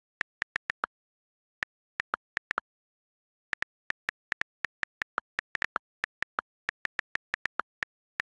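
iPad on-screen keyboard key clicks during fast, irregular typing, several a second, with two short pauses early on; some clicks are a little lower in pitch than the rest.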